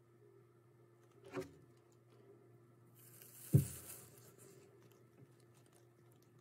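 Lesser hedgehog tenrec chewing mealworms, faint small crunches. There is a click about a second in, and a rustle with a sharp thump, the loudest sound, about three and a half seconds in.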